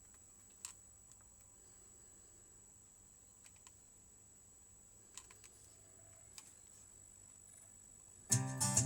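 A few faint clicks over a quiet background with a steady high-pitched whine, then guitar music starts suddenly near the end, played through the TDK NX-03 mini hi-fi system.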